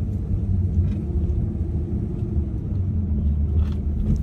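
Steady low rumble of a Pontiac G8 sedan being driven, its engine and road noise heard from inside the cabin.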